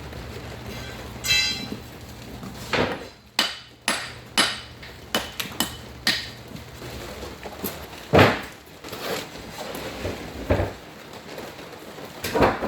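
Masonry tools striking fieldstone: a dozen or so sharp, irregular knocks and taps as stones are set, the loudest about two-thirds of the way through. A low steady hum runs underneath and stops a little past halfway.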